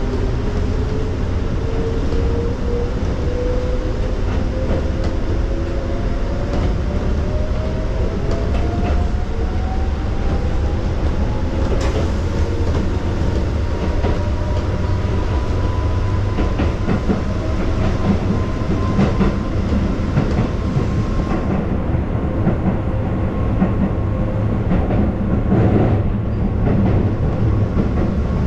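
Electric train running on the rails, the traction motor whine rising steadily in pitch over the first fifteen seconds or so as the train accelerates, then holding level, over a low rumble with the wheels clicking over rail joints.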